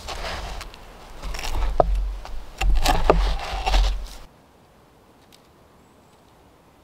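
A hatchet chopping through a pizza onto a wooden board: a run of chopping strikes over a low rumble, two of them with a short ringing from the blade. About four seconds in it cuts off abruptly to a faint, quiet woodland background.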